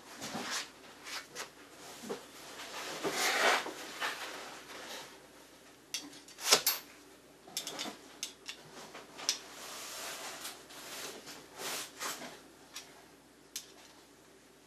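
Metal parts of a Shopsmith lathe tool rest being handled and fitted: irregular clicks, clinks and short scrapes, with a longer scrape about three seconds in and the sharpest click about six and a half seconds in.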